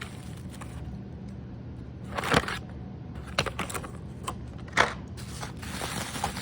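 Carded toy-car packaging being handled: scattered crinkles and sharp clicks of plastic blister and cardboard, the loudest about two and a half seconds in and again just under five seconds in, over a low steady hum.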